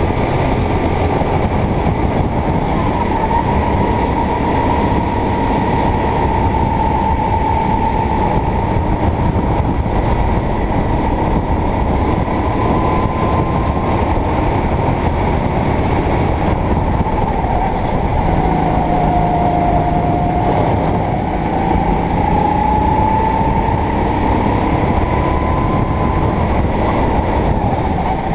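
Racing kart engine heard close up from the kart itself, running hard at full race pace. Its pitch falls as the kart slows for corners and climbs again on the straights, dipping lowest about two-thirds of the way in, over steady wind and track noise.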